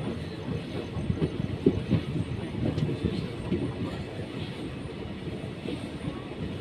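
Train running on rails: a steady low rumble with irregular knocks and clatter from the wheels on the track.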